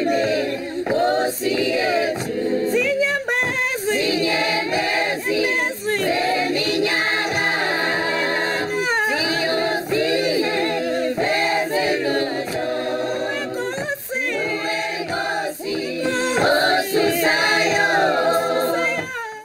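A choir singing a cappella, several voices together in long sung phrases, cutting off abruptly at the end.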